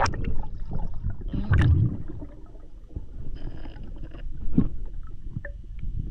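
Muffled water sloshing and splashing around the camera, with a low rumble and irregular knocks; the strongest surges come about a second and a half in and again near four and a half seconds.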